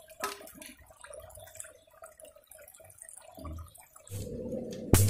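Faint trickle of a shallow stream over rocks, with scattered small clicks. About four seconds in, louder rustling of something handled right against the microphone takes over, ending in a sharp knock just before the end.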